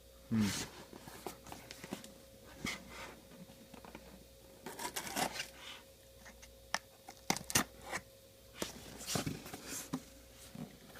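Packaging being handled and unwrapped: irregular rustles, scrapes and light knocks, over a faint steady hum.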